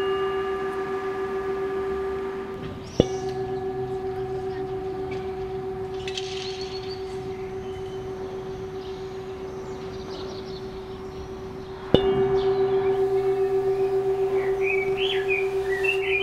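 Singing bowl ringing with one steady tone and its overtones. It is struck again about three seconds in and about twelve seconds in, and each stroke leaves a long, wavering ring that slowly fades.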